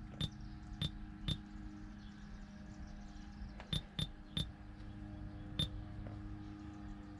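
Sony XAV-AX1000 car stereo's touchscreen giving short key-press beeps as menu items are tapped, seven in all at irregular spacing, over a steady low hum.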